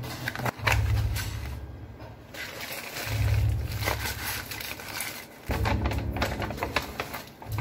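Plastic takeout food container being handled and opened on a kitchen counter: knocks, clicks and plastic rustling, with a low hum that comes and goes three times.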